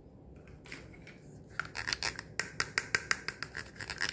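Small plastic toy cups clicking and tapping against each other in hand, a quick run of sharp light clicks, about six a second, starting about a second and a half in.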